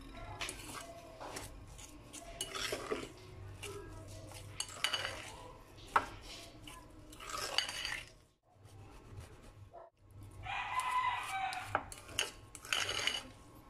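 A metal fork scraping and clinking against a ceramic bowl in irregular strokes as mashed potatoes are mixed. About ten seconds in, a drawn-out pitched call, a little over a second long, sounds in the background.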